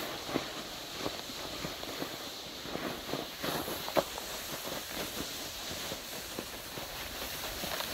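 Footsteps in snow, an irregular run of soft steps, with one sharper knock about four seconds in.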